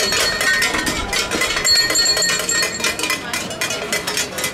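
Dense, continuous jangling and clanking of many metal bells with a few ringing tones through it: the cowbells worn by busó masqueraders.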